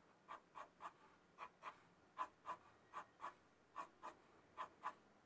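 Charcoal sketching pencil stroking on drawing paper, faint short scratchy strokes mostly in pairs, about every three-quarters of a second, as an edge is pressed in darker.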